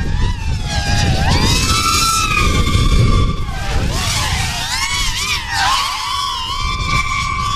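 FPV racing quadcopters' brushless motors whining as they fly past, the pitch sweeping up and down with throttle and holding steady for a moment about two and seven seconds in.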